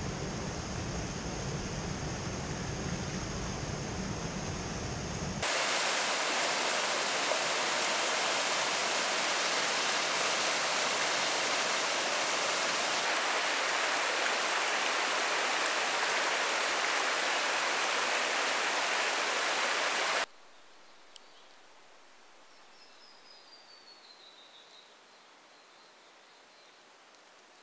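Rushing water of a bush stream or small waterfall. It starts at moderate level with a low rumble and a thin steady high whine, jumps abruptly louder and fuller at about five seconds, and cuts off sharply at about twenty seconds. Quiet bush follows, with one faint whistle that falls in pitch.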